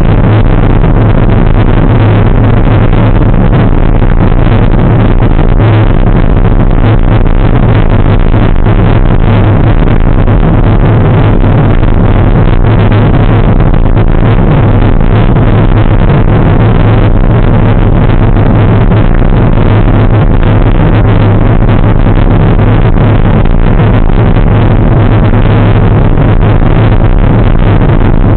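Steady, very loud wind rumble on a moving bicycle's camera microphone, an even roar heaviest in the low end that drowns everything else out.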